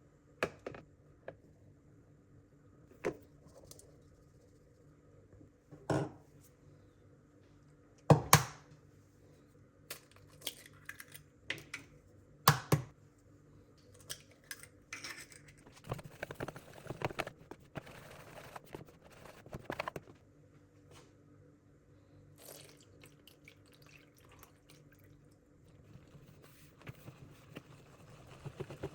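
Kitchen handling sounds while making pancake batter: separate sharp knocks and clinks of utensils and containers against a bowl, with a longer stretch of liquid and stirring noise about midway. A faint steady low hum lies underneath.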